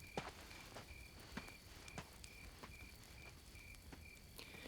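Crickets chirping steadily, about three chirps a second over a fainter steady insect trill, with a few sharp crackles from a campfire.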